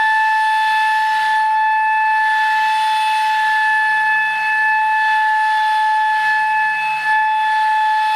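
50 mm electric ducted fan of an Eclipson Inferno RC jet running at steady high throttle: a loud, steady high-pitched whine over a rush of air, the jet's thrust being used to blow leaves.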